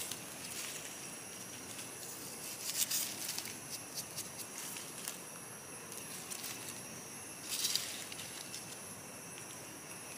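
Short bouts of rustling in dry leaf litter, about three seconds in and again near eight seconds, over a steady high drone of forest insects.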